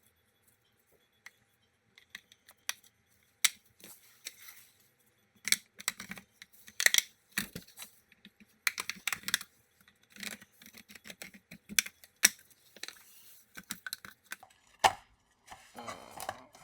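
Plastic case of an Asus VivoBook X512D laptop being pried open with a sharp metal blade: irregular clicks and snaps as the retaining clips let go, with short bursts of scraping plastic.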